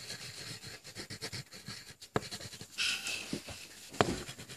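Crayon scribbling back and forth on paper while colouring in, a steady rapid scratching with a few sharp taps of the crayon on the page.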